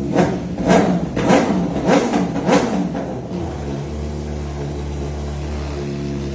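BMW S1000RR inline-four sport bike engine, heard through its exhaust, revved in about five quick throttle blips in the first three seconds. Each blip rises and falls before the engine settles back to a steady idle.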